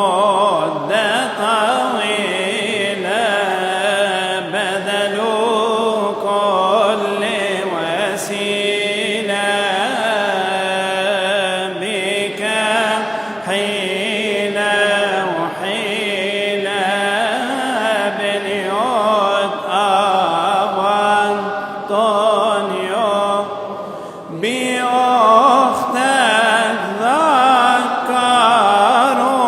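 A man's voice chanting a Coptic Arabic madih (praise hymn) in a long, ornamented, wavering melody, with a short breath break about 24 seconds in.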